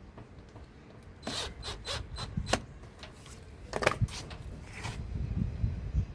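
Irregular scraping and clicking of hand tools and hard plastic parts as a replacement washing-machine drain pump is screwed into place. There are two clusters of strokes, the first starting about a second in and the second about four seconds in.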